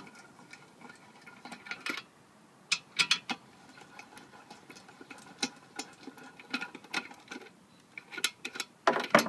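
Scattered light metallic clicks and clinks of hand work on an engine-block drilling fixture: the reamer is lifted out of the fixture's guide hole and the fixture's hold-down bolts are undone. A denser run of louder clicks comes near the end.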